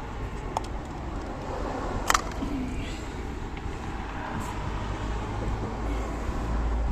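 Steady low rumble of background vehicle noise, with a sharp click about two seconds in and a fainter one earlier.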